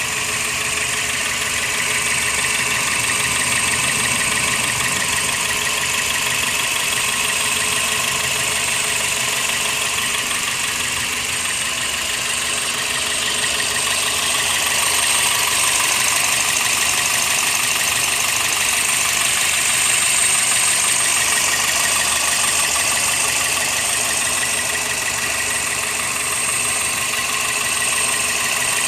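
1999 Toyota Corolla four-cylinder engine idling steadily once warmed up, the stage at which its misfire goes away.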